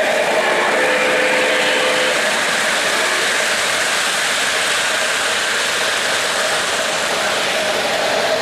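O-gauge three-rail model freight train rolling past close by, its wheels running on the track in a steady, even rolling noise.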